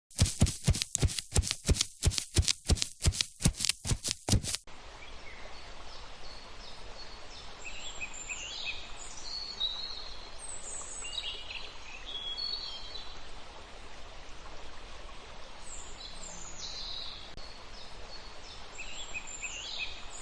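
A fast run of sharp clicks, about four a second, that stops abruptly a few seconds in. It gives way to an outdoor background of steady hiss with birds chirping over and over.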